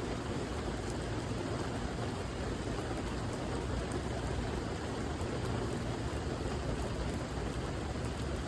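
Steady rain falling on a surface, a continuous even hiss with faint scattered drop ticks.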